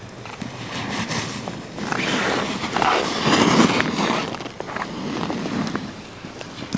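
Alpine race snowboard carving hard turns on the snow: a scraping hiss from the edges that swells with each turn and is loudest as the rider passes close, about three and a half seconds in.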